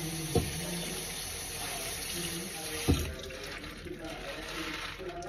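Kitchen tap running water onto spinach leaves in a stainless mesh strainer in the sink, stopping about three seconds in. Two sharp knocks come about half a second and three seconds in.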